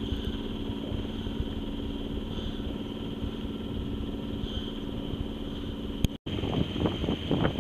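A sailboat's engine running steadily while motoring at low speed. About six seconds in it cuts off abruptly, and gusty wind noise takes over.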